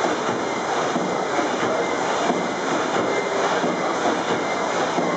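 The 1901 Sulzer-built steam engine of the paddle steamer Uri running at cruising speed: a steady mechanical clatter and rush from its moving cranks and connecting rods.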